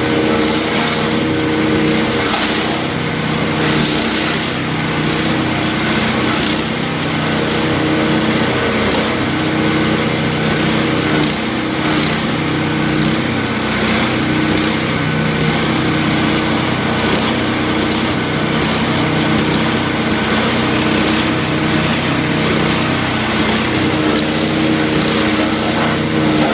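A 13 hp wood chipper's engine running steadily under load, with irregular cracks and crackles as branches are fed through and chipped.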